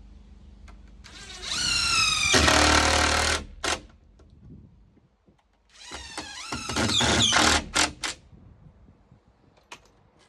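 Power drill run twice, each time whining up in pitch as it spins up and then going rough and noisy as the bit bores into the wooden bench board, pre-drilling screw holes.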